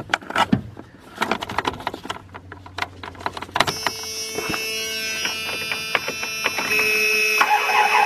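Clicks and handling noise, then from about three and a half seconds in a steady electrical whine with several tones. It grows louder near the end as the 2000 Dodge Ram Van 1500's 3.9-litre V6 cranks and starts: the starter now has a jumper-cable ground to the battery, which points to a bad factory ground.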